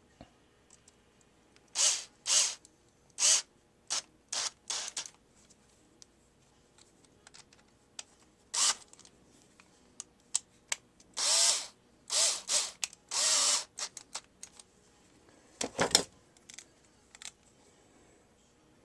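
Small power screwdriver driving the screws into a plastic hair-clipper housing in a series of short bursts. A sharp knock comes near the end.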